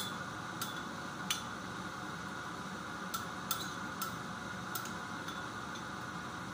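Metal spoon clinking against a ceramic soup bowl while eating from it: several light, irregularly spaced clinks over a steady background noise.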